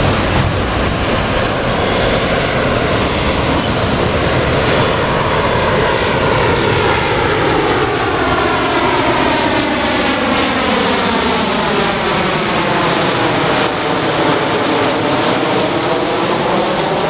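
Jet engines of a Lion Air Boeing 737 on final approach, passing close overhead. A steady, loud rush whose tone sweeps down and back up around the moment of closest approach, about three-quarters of the way through.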